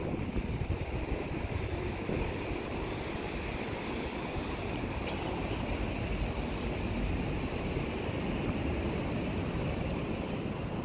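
Outdoor street ambience dominated by wind rumbling on the microphone, a steady, unsettled low noise with no distinct events.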